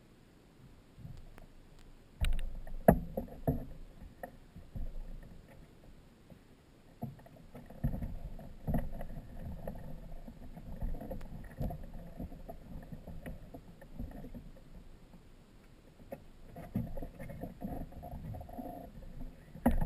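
Irregular knocks, creaks and rustling from a person shifting about in the seat of a parked microlight trike and climbing out of it, in several uneven bursts with the sharpest knocks about two to three seconds in and near the end.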